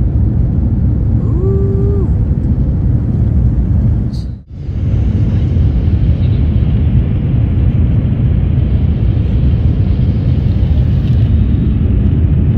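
Steady roar inside the cabin of an Airbus A350 in flight, from its Rolls-Royce Trent XWB jet engines and the airflow, heard at a window seat while climbing over the city at night. The sound cuts out briefly about four and a half seconds in, and a short held tone sounds about a second and a half in.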